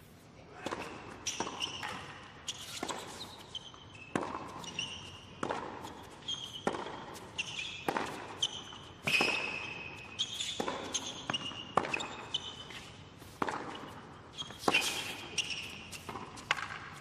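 Tennis ball struck by rackets and bouncing on a hard court in a long rally, opening with a serve: a string of sharp pops about every half second.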